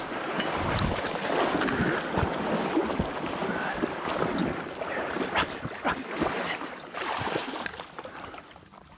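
Marsh reeds rustling and crackling close against the microphone as someone pushes through them, with water sloshing underneath; the sound dies down near the end.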